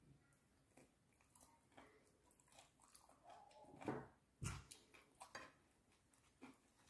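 Close-miked chewing of a French fry: soft wet mouth clicks and smacks, with a cluster of louder smacks about four to five seconds in.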